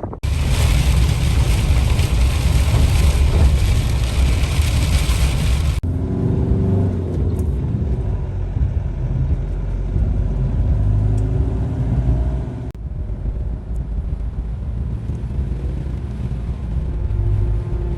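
Fiat Ducato campervan driving, heard as a steady low engine and road rumble. A loud hiss of road and wind noise lies over it for the first six seconds. The sound changes abruptly about six seconds in and again about thirteen seconds in.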